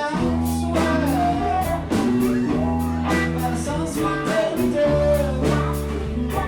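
Live blues-rock band playing: slide guitar over lead guitar, bass and drum kit, with gliding notes about a second in and again near five seconds.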